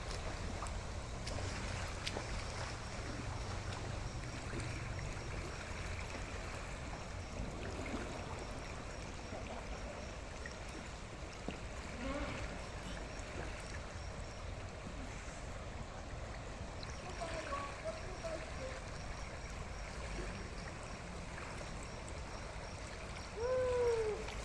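River water running steadily past, a continuous rushing and rippling of the current. A faint voice calls out briefly near the end.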